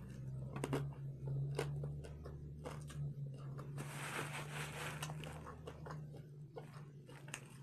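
Close-up chewing of a homemade taco with a hard-fried corn shell: a string of crisp crunches and wet mouth sounds, over a steady low hum.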